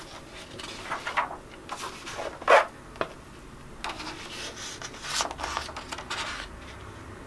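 A large hardcover book being handled and its pages turned: a series of short papery swishes and rubs, the loudest about two and a half seconds in.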